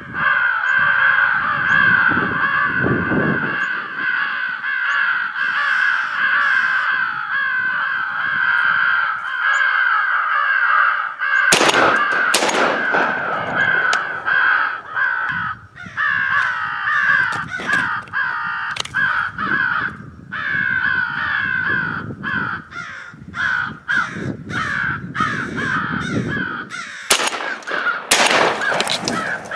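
Many crows cawing at once, a continuous overlapping chorus of harsh caws. Two sharp loud bangs stand out, one about twelve seconds in and one near the end.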